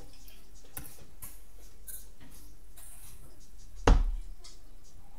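A steel-tip dart striking a bristle dartboard once, a sharp thud about four seconds in that dies away quickly, over faint room noise.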